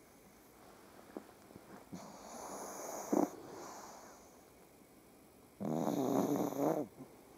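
A pug dog snoring in its sleep: a rasping breath that swells to a short snort about three seconds in, then a longer, louder snore with a droning pitch near the end.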